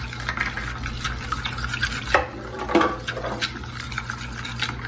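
A metal spoon stirring a watery mix of warm water, yeast, sugar, egg and oil in a plastic mixing bowl: quick light clinks and scrapes of the spoon against the bowl with the swish of the liquid.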